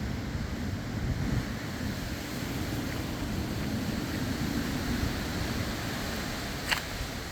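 Strong hurricane wind buffeting the microphone in a low, uneven rumble, with a steady rushing hiss; a single sharp click near the end.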